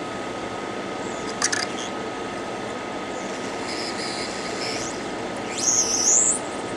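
Hot air rework station blowing a steady rush of air at a phone logic board, with a faint steady hum in it. A brief high squeal comes near the end and is the loudest thing.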